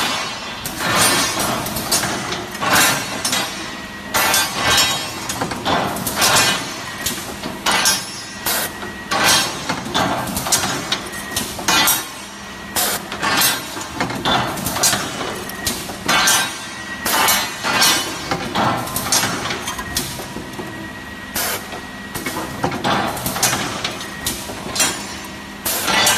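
Steel round bars clanking and clinking irregularly as they roll and drop through the racks of an automatic round bar chamfering machine, over the machine's steady running hum.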